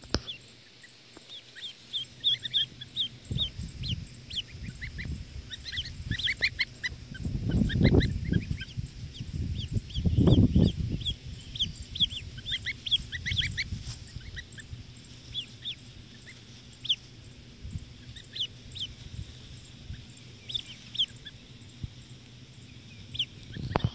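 Newly hatched goslings and ducklings peeping: many short, high peeps scattered throughout. Low rustling runs underneath, with two louder low rumbles about 8 and 10 seconds in.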